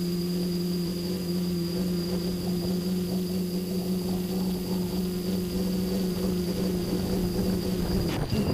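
Tricopter's brushless motors and propellers running steadily in flight, a constant whine heard close up from the aircraft's own camera. Near the end the pitch dips briefly and the tone changes, as the throttle shifts.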